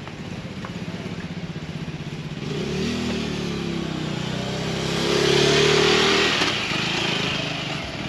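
Motor scooter passing close by from behind and riding on ahead: its engine grows louder to a peak about two-thirds of the way through, then eases off as it pulls away.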